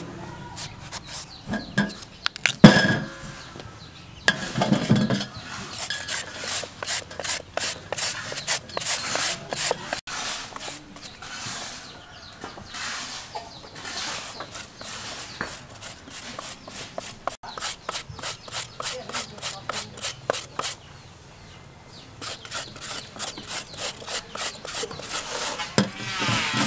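Papaya being shredded on a flat metal hand grater: quick rasping strokes, a few per second, in long rhythmic runs. A few knocks and scrapes of a knife on papaya over a stainless steel tray come in the first seconds.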